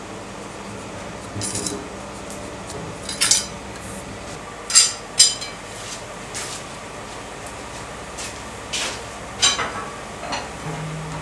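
Steel bar stock and hand tools clinking and clanking as they are picked up and set down, a scattered series of sharp metallic clinks, the two loudest close together about halfway through, over a steady low hum.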